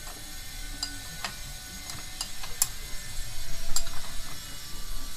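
A box-end wrench on a tight bolt on a scooter's crankcase: several sharp, separate metal clicks and knocks as the wrench is strained to break the bolt loose.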